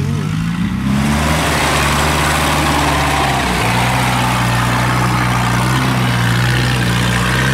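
Engine of a tracked rice-hauling carrier loaded with sacks of rice, running steadily as it crawls over rough ground, louder and noisier from about a second in.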